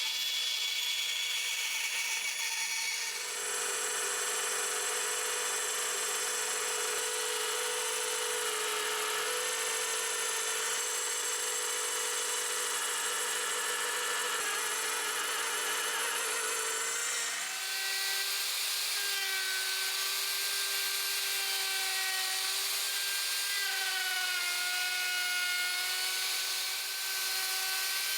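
Electric power tool running continuously on wood, its motor whining at a steady pitch. The sound changes character twice, and in the second half the pitch dips slightly now and then, as if under load.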